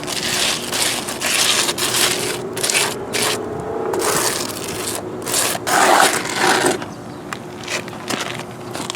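Wet concrete being scraped and spread over stone in a series of uneven strokes, busiest for the first seven seconds or so and lighter near the end.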